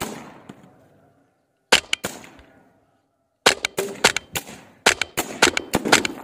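M40 semi-automatic PCP bullpup air rifle firing. One sharp shot about two seconds in, then a quick string of shots from about three and a half seconds in.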